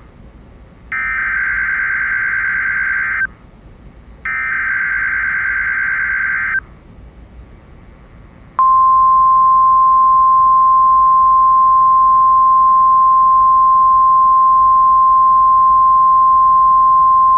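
NOAA Weather Radio emergency alert signal: two loud buzzing SAME digital header bursts of about two seconds each, a second apart, then the steady single-pitch 1050 Hz warning alarm tone held for about nine seconds. The sequence marks the start of an alert broadcast, here a severe thunderstorm watch.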